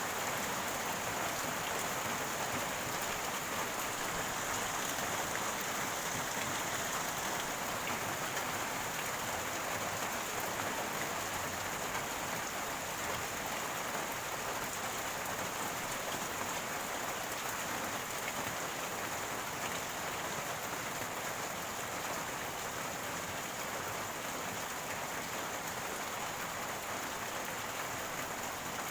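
Rain falling steadily: a continuous, even hiss of water that neither starts nor stops.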